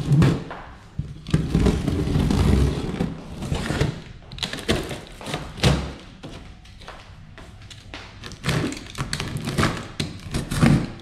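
Utility knife slicing through packing tape and cardboard along the seams of a large shipping box, with irregular scraping strokes and thumps as the box is handled.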